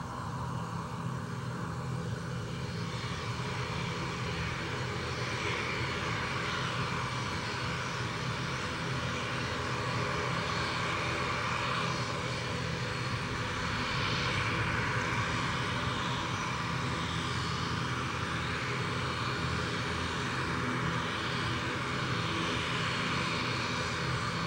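Airbus A320neo's twin turbofan engines running during the landing roll on a wet runway, a steady roar that swells to its loudest about halfway through, then holds.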